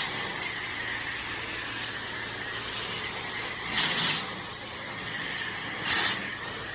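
Pressure washer wand spraying, a steady hiss of the water jet hitting the surface, with two brief louder surges about four and six seconds in.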